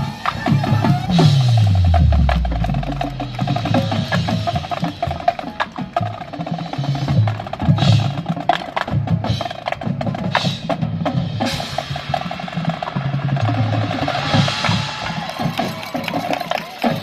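Marching band percussion playing: snare and bass drums with wood block, over a steady held note, with a low pitch sliding down about a second in.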